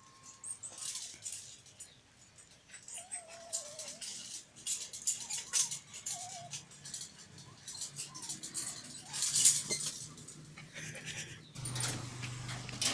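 A dog's claws scrabbling and scraping on the wooden rails, tarpaulin and wire as it clambers across a fence top, with leaves rustling in irregular bursts. A low steady hum comes in near the end.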